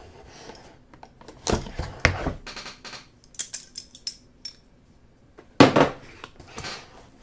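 A folding multitool cutting the seal of a small cardboard box, then being folded shut while the box is handled: several short, sharp clicks and scrapes with quiet gaps between them.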